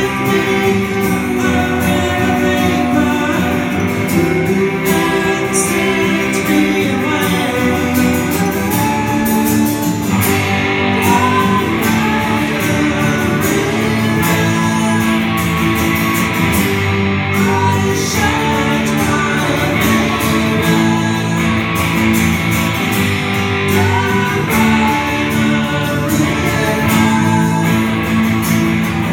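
Live electric guitar and strummed acoustic guitar playing a song together, with a voice singing over them.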